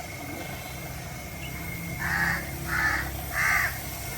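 A bird calling three times in a row, short harsh calls about two-thirds of a second apart, starting about halfway through.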